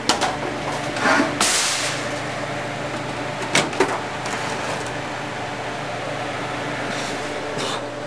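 Clicks and knocks of handling as a microwave oven's door is opened and a small fan is set up to vent the smoke, with a short loud rustling burst about one and a half seconds in. A steady low hum runs underneath.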